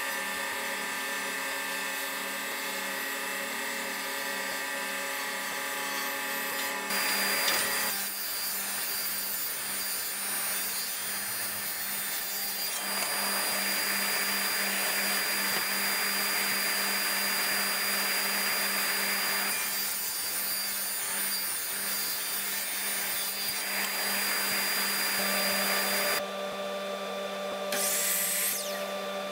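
Woodshop power tools and dust collection running steadily: a constant hum with a louder stretch in the middle as a table saw cuts a board. Near the end a short rising whine as a miter saw spins up.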